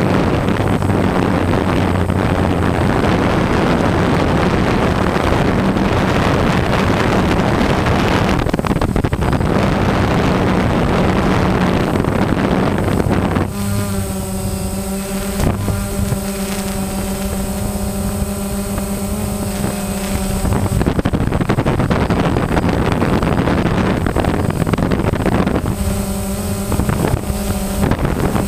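DJI Phantom quadcopter's motors and propellers humming steadily, picked up by the drone's own on-board camera. Wind buffets the microphone through much of the first half and again around two-thirds of the way through, at times covering the hum.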